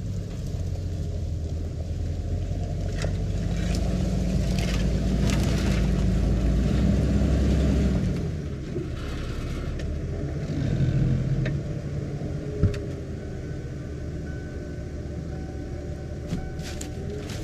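A 1996 Ford F-150 pickup's engine running as the truck reverses slowly over leaf litter, with a few sharp crackles from twigs and leaves under the tyres. It settles to a lower, steady idle once the truck stops about eight seconds in, and there is a single sharp click a few seconds later.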